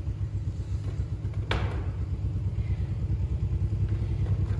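A steady low rumble of an engine running, with fine, even pulsing, and one sharp click about a second and a half in.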